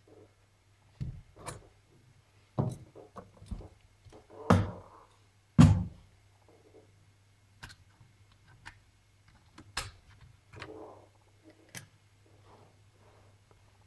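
A netbook's plastic case being handled during disassembly: irregular sharp clicks, taps and thunks, the loudest about five and a half seconds in, over a faint steady low hum.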